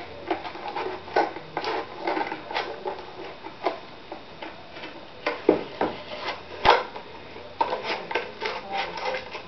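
Cardboard tube being handled: irregular light taps, scrapes and rustles, with one sharper click near the middle.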